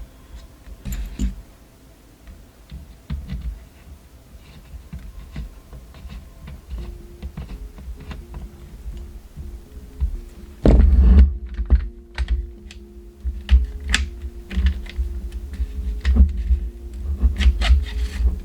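Irregular clicks and taps of a vintage Velbon metal tripod leg and its latch being handled and worked, with one heavier clunk about 11 seconds in, as a homemade nylon insert in the leg-latch stop is tested. A faint steady hum sits underneath.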